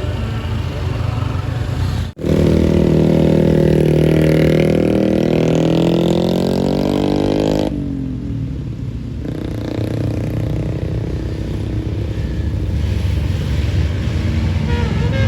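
A tour bus passing on the road. From about two seconds in, a loud sound of several pitched tones slides slowly down in pitch and stops abruptly, then a steadier engine and road rumble follows.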